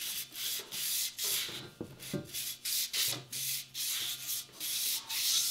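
A strip of 400-grit sandpaper, wet with WD-40, rubbing back and forth around a steel crankshaft journal of a Ford 351M engine as the journal is polished by hand. The sanding comes in quick, even strokes, two or three a second.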